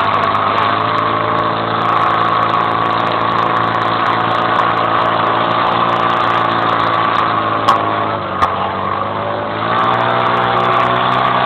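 Portable fire pump engine running steadily at high revs while pumping water out through the attack hoses. Its pitch sags briefly about eight seconds in, with a couple of short knocks, then picks back up.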